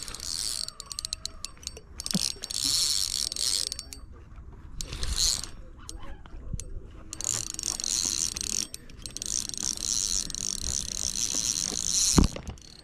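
Spinning fishing reel whirring with fast clicking as it is worked against a hooked fish, in several stretches, the longest through the second half. A thump near the end.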